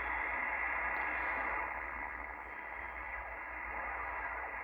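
Kenwood TS-450S HF transceiver's speaker putting out steady receiver static, cut off sharply above about 3 kHz, with a low hum underneath.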